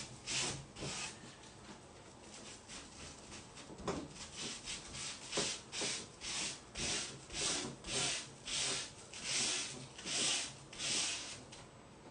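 Rubbing strokes over glued decoupage tissue paper on a table top, smoothing it down against wrinkles. The strokes are repeated and hissy, fainter for the first few seconds, then steady at about two a second.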